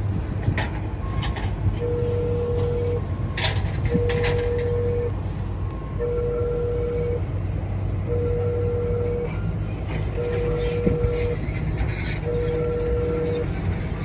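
An electronic beep sounding at a steady pitch, on for about a second and off for about a second, repeating evenly from about two seconds in, over a steady low hum. A few knocks are heard early on.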